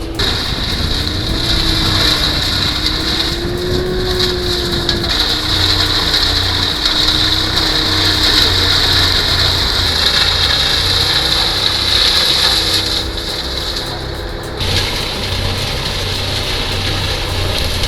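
Mobile wood chipper running under load, its engine drone wavering in pitch as logs are fed in and chipped, over a loud steady grinding hiss; the sound changes abruptly about 15 seconds in.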